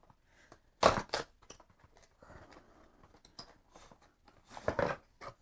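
Thin cardboard product box being opened by hand: flaps and tabs pulled and bent, with short crackling and scraping rustles of paperboard, the loudest about a second in and a few more near the end.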